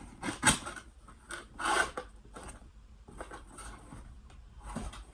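Cardboard packaging of a Funko Pop figure being handled and opened: rustling and scraping, with a sharp snap about half a second in and a louder scrape a little before two seconds.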